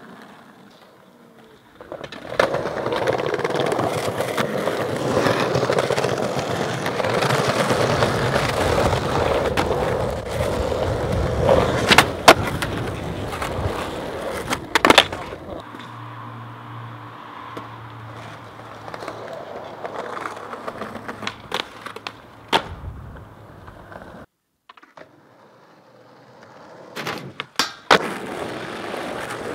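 Skateboard wheels rolling on rough asphalt, with sharp clacks of the board popping and landing, over several separate runs with short quiet pauses between them.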